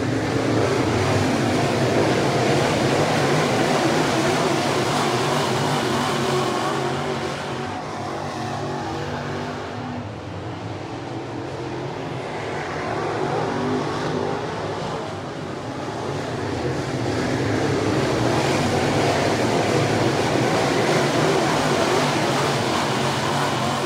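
Dirt late model race cars' V8 engines racing around a dirt oval, the sound swelling and fading as the cars pass: loud in the first few seconds, dipping about ten seconds in, then swelling again near the end.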